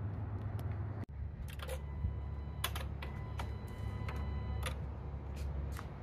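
A run of light, irregularly spaced clicks and taps over a steady low hum.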